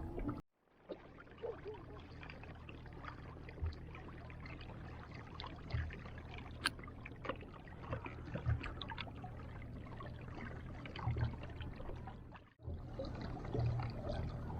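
Water lapping and trickling against the hull of a small boat, with light scattered knocks. The sound drops out briefly about half a second in and again near the end.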